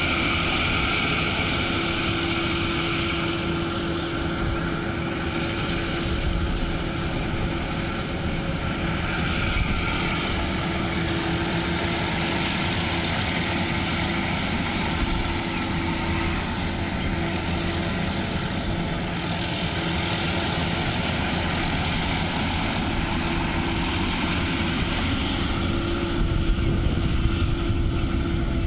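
Engine of a rice harvesting machine running steadily with a continuous mechanical hum, a little louder near the end.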